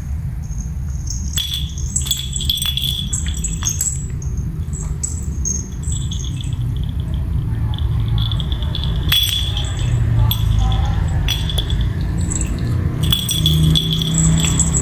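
A small jingle bell jingling on and off in short bursts as kittens scamper and play, with light clicks, over a steady low hum.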